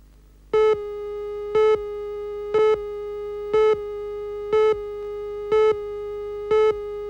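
Videotape countdown leader tone: a steady pitched line-up tone that starts about half a second in and sounds a louder beep once a second, in step with the numbers counting down.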